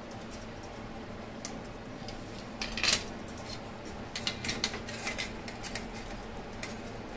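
Scattered light clicks and clinks of metal kitchen utensils being handled. One louder clink comes about three seconds in, and a run of lighter taps follows.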